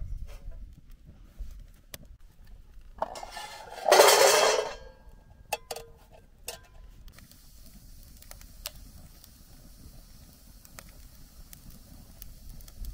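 A handful of chestnuts poured into a steel frying pan, rattling and clattering against the metal for about a second and a half, then a few clicks as they settle. After that, a faint hiss with occasional crackles from the small wood fire under the pan.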